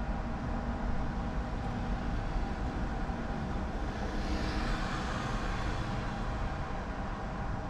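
Steady vehicle and road noise, a low rumble with faint steady tones, with a hiss that swells and fades about four to six seconds in, as of a vehicle passing.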